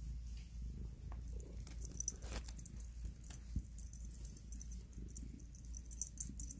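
Domestic cat purring steadily while being stroked, close to the microphone, with a few light clicks and rustles.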